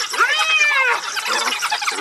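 African wild dogs (painted dogs) squealing and twittering: a dense high-pitched chatter of many calls, with one long whining squeal that rises and falls in pitch during the first second.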